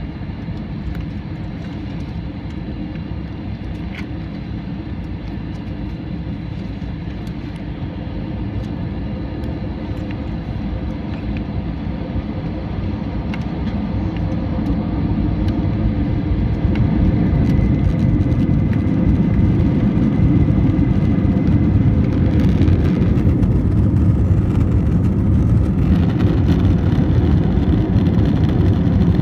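Jet airliner heard from the passenger cabin: a deep engine and runway rumble that grows steadily louder over about fifteen seconds and then holds loud, as the engines go to takeoff power and the plane rolls down the runway.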